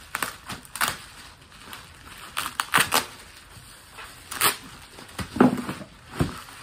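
Cardboard box and plastic packaging being handled and set down: a string of separate clacks and knocks with some rustling in between.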